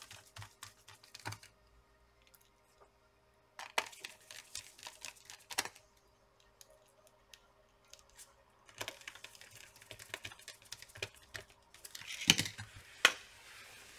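Small screwdriver fastening a laptop battery's screws into the chassis, with scattered light clicks and taps of metal and plastic and a few louder clicks near the end.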